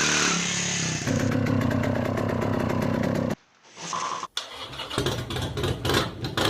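Motorcycle engine being started and run, then cut off abruptly a little over three seconds in. After a short gap, more uneven motorcycle engine sound with sharp bursts.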